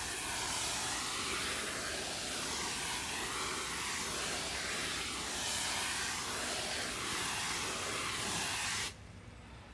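Water from a garden-hose shower nozzle spraying steadily onto dry peat-based soil-block mix in a plastic tub, wetting it down. The spray cuts off suddenly about nine seconds in.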